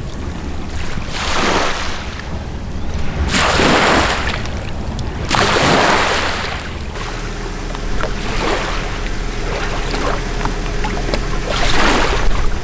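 Small waves washing onto the lakeshore, swelling and fading about every two seconds, over a steady low rumble.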